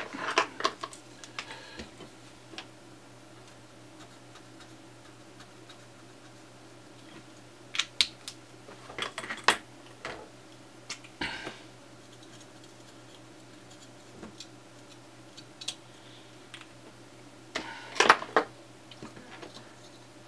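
Scattered clicks and taps from small parts and a circuit board being handled and set down on a workbench, in a few clusters: at the start, around eight to eleven seconds in, and again near the end. A steady low hum runs underneath.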